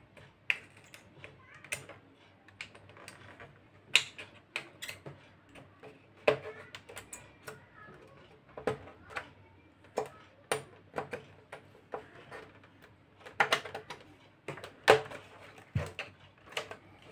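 Irregular clicks and scratching of a pen tip working around a plastic stencil's circle cut-out, cutting a round hole in LED TV backlight reflector sheet.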